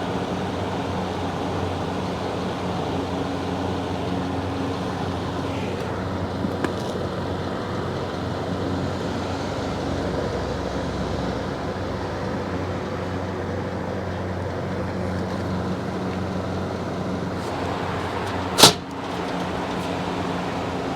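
Electric fan running steadily: the motor hums under the rush of air. One sharp click sounds near the end.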